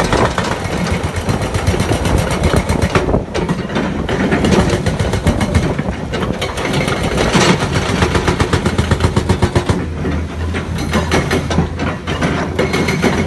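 Excavator's diesel engine running under load with a fast, rattling train of hard knocks, settling into a steadier engine hum for the last few seconds.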